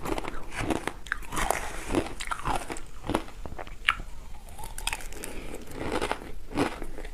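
Ice being bitten and crunched between the teeth: a string of irregular crisp crunches, with a short lull about four seconds in.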